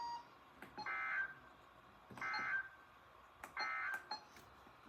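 Emergency Alert System end-of-message signal: three short bursts of warbling digital data tones, about a second apart, that close a weather warning broadcast.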